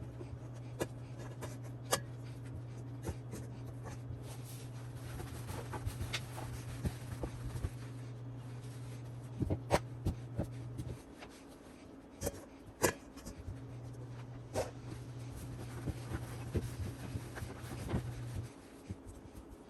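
Paper towels rubbing and crinkling as they are pressed onto raw chicken wings to blot them dry, with scattered soft taps and rustles. A low steady hum runs underneath and drops out for a couple of seconds about eleven seconds in.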